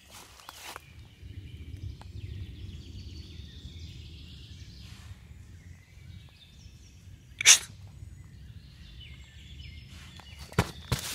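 One short, sharp blast of breath like a sneeze or snort, about seven and a half seconds in, over a low steady rumble and faint high chirps; two sharp knocks near the end.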